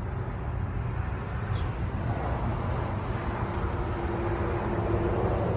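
Steady low rumble of a vehicle engine, growing gradually louder, with a steady hum joining near the end.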